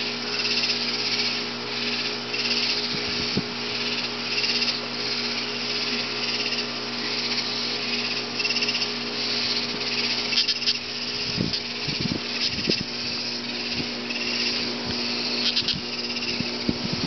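Katydid (longhorned grasshopper) stridulating: a loud, rhythmic high buzzing pulse repeated every half second or so. A few soft low knocks come from the puppy mouthing it about two-thirds of the way in.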